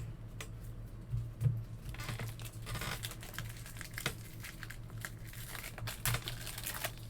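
Plastic trading-card pack wrapper crinkling and tearing, with cards being handled, in irregular rustles and clicks and a couple of louder knocks a little over a second in.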